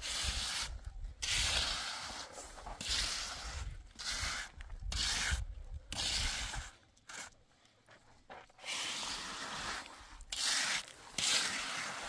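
Repeated rough rubbing strokes, each lasting up to about a second, with short pauses between them and a longer gap a little past the middle.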